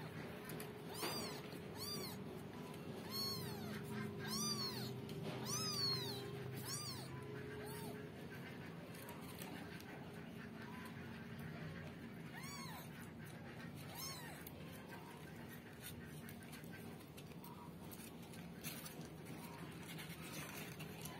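Newborn kittens mewing: about eight short, high-pitched mews, each rising and falling in pitch, coming about once a second for the first seven seconds, then two more later.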